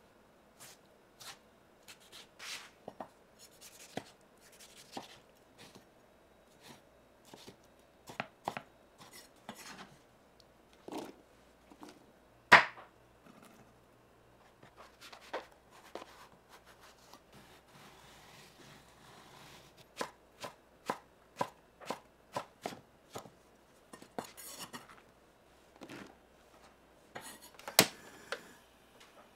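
A kitchen knife chopping tomato and eggplant on a wooden cutting board: irregular sharp knocks of the blade striking the board, with one much louder knock about halfway through.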